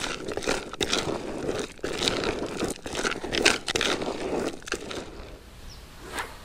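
A carp bait mix of whole grains, corn, boilies and pellets being worked by hand or scoop: irregular crunchy rustling that stops about five seconds in.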